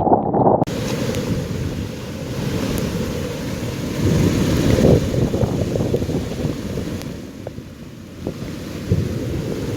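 Storm wind buffeting the microphone in a low, rumbling roar that swells and eases, with a fainter steady hiss above it from about a second in.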